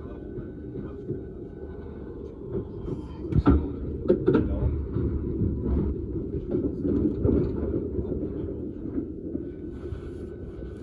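Southeastern Class 395 electric train heard from inside the carriage while moving: a steady low rumble from the running gear. A few sharp knocks come about three and a half and four seconds in, with rougher clattering for a few seconds after, as the wheels run over the track.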